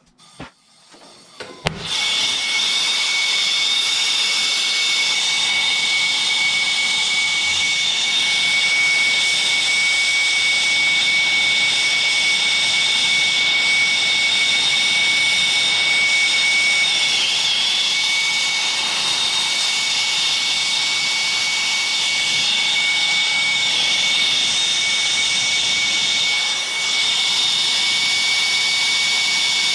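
Hose-fed brazing torch burning with a steady hiss and a faint high whistle, starting with a click about two seconds in, its flame heating a copper refrigerant line.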